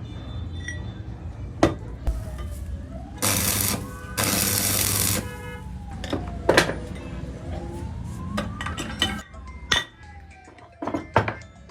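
Sharp metal clinks and knocks from work on a clutch plate and flywheel, with two loud hissing bursts a few seconds in. A faint tone slowly rises and falls behind them, like a distant siren.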